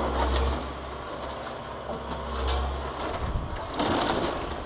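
Excavator engine running steadily while demolishing a wooden building, with scattered sharp cracks and knocks from the structure being broken up, and a louder stretch of crunching about three seconds in.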